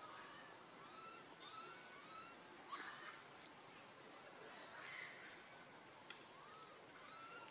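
A steady, high insect drone. Over it, short arched whistle-like calls come in runs of three or four, once early and again near the end, with a brief rustle about three seconds in.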